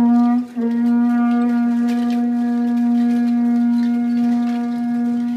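Horagai (Japanese conch-shell trumpet) blown in one long, steady held note, with a short break about half a second in.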